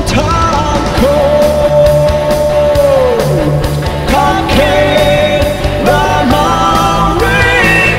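A song with a held, sliding sung melody over a band backing of guitar, bass and drums keeping a steady beat.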